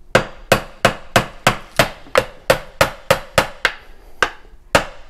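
Steady hammer taps, about three a second, on a screwdriver wedged into the RTV-sealed joint of a Jeep transfer case's tail housing, prying it loose. Each tap is a sharp metallic knock with a short ring. There is a slightly longer pause near the end.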